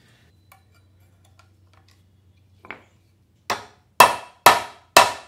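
Hammer striking a steel bolt threaded into a pressed-in fastener on an aluminium radiator-guard bracket, to knock the fastener out of the plate. After faint handling clicks and a light tap, four sharp metallic blows come about half a second apart in the second half.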